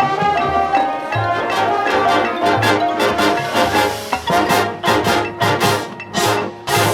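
High school marching band playing: brass chords over low drum beats, then a run of sharp percussion hits through the second half, the last and loudest near the end.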